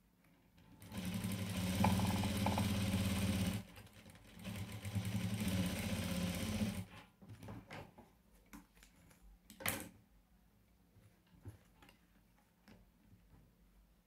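Electric sewing machine running a seam across the top of a piece, in two steady runs of about two and a half seconds each with a short pause between. A few light handling clicks and one brief sharp noise follow.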